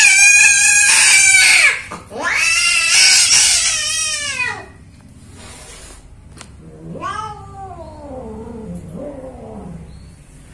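A female cat in heat yowling while being mated. There are two long, loud caterwauls, the second falling in pitch at its end, then quieter falling yowls about seven seconds in.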